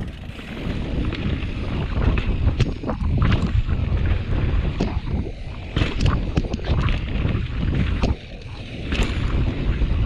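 Wind buffeting the microphone while a mountain bike rolls at speed over rough ground, with frequent sharp clicks and knocks from the bike rattling over bumps.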